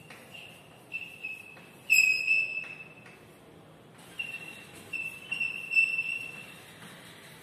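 Chalk squeaking on a blackboard as a word is written: short, high-pitched squeals in a run of strokes, a pause of about a second, then another run, with faint taps of the chalk between strokes.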